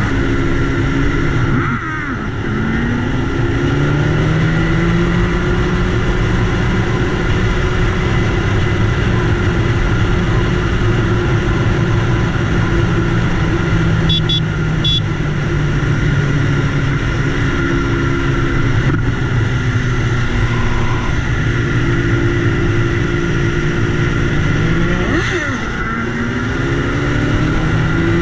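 BMW S1000RR's inline-four engine running at cruising speed. Its pitch drops and climbs back about two seconds in and again near the end.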